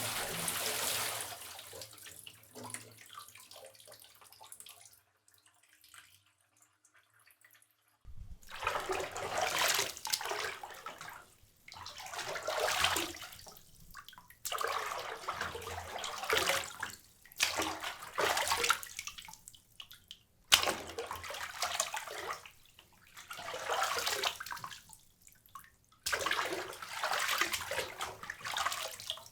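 Water splash sound effects: a splash that trails off into dripping, a short silence, then a series of separate water splashes and sloshes, each lasting a couple of seconds with brief gaps between them.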